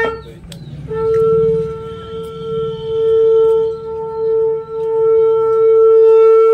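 A conch shell (shankha) blown in one long note that starts about a second in. It holds a steady pitch while swelling and dipping in loudness. An earlier blast cuts off right at the start.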